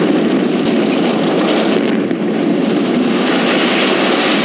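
Brick industrial smokestack collapsing in a demolition: a continuous loud rushing rumble of falling masonry, growing a little brighter near the end.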